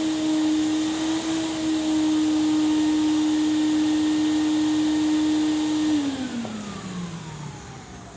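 Vacuum cleaner running steadily with a high motor whine and rushing air, then switched off about six seconds in, its pitch falling as the motor spins down.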